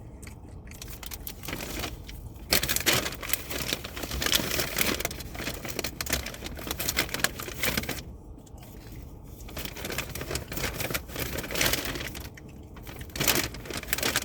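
Paper takeout bag and food wrappers rustling and crinkling in stretches of several seconds as they are handled and opened, with short pauses between.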